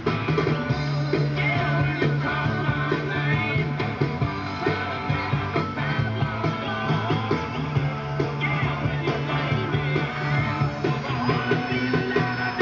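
Rock music with guitar, vocals and a steady beat.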